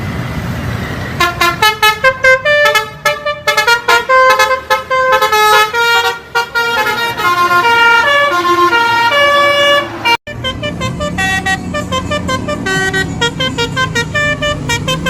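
Tour bus 'telolet basuri' musical horn playing a quick melody of short notes at changing pitches. Just after ten seconds it cuts abruptly to another bus's horn tune over a low rumble.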